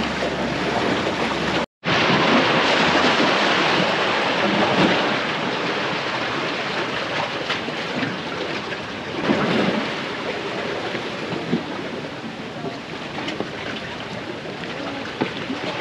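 Sea surf washing against jetty rocks, with wind buffeting the microphone: a loud, even rush of noise. It drops out for an instant about two seconds in.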